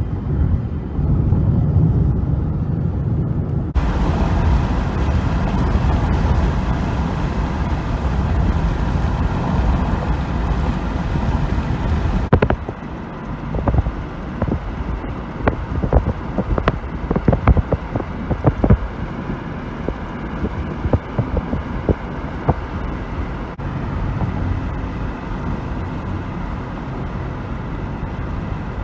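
Road noise inside a moving car for the first few seconds, then, after abrupt cuts, steady wind blowing across the microphone with a run of crackling gusts in the middle.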